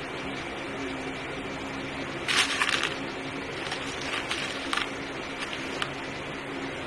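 A quick cluster of hard clicks and clatter about two and a half seconds in, then a few lighter clicks, from small parts and tools being handled during battery-cell connection work, over a steady low electrical or fan hum.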